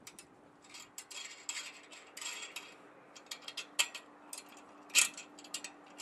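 Irregular metal clicks and scrapes as the adjustment bolts and nuts on a microwave dish antenna's pole-mount bracket are loosened and worked by hand. The loudest click comes about five seconds in.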